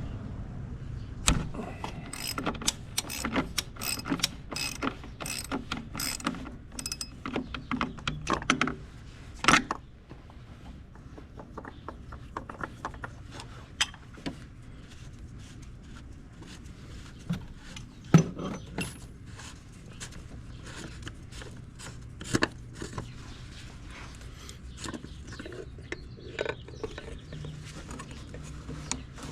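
Ratchet on a long extension clicking in quick strokes as it unscrews the oil filter housing cap on a 2.0L TDI engine, followed by scattered clicks and a few sharp knocks as tools and cap are handled.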